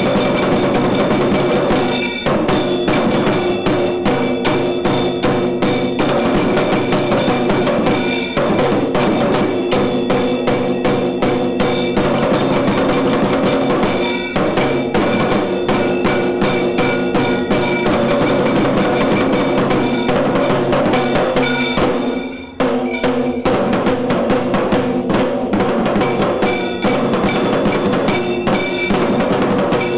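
Tiru Kailaya Vadyam, a Tamil temple ensemble of drums and horns, playing: dense, fast drumming over steady held horn tones. The sound dips briefly about three quarters of the way through, then resumes.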